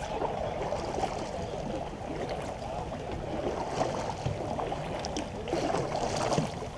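Double-bladed kayak paddle strokes: the blades dipping and pulling through the water, with water splashing and trickling off them.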